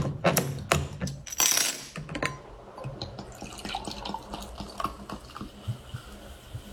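Orange juice splashing and dripping: a quick run of sharp clicks and splashes over the first two seconds, then a softer crackling trickle.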